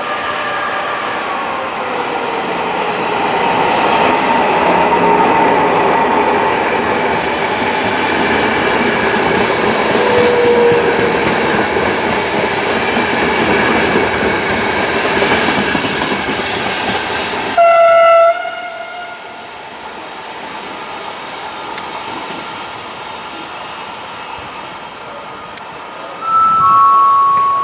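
Locomotive-hauled passenger train passing slowly on the rails: steady rolling noise with faint wheel squeals, which drops away suddenly about two-thirds of the way through. A loud horn blast of about a second follows, and near the end come two short tones, one high then one a little lower.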